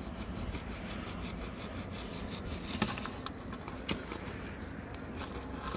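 Hand saw cutting through black plastic water pipe in quick back-and-forth rasping strokes, with two sharper clicks near the middle.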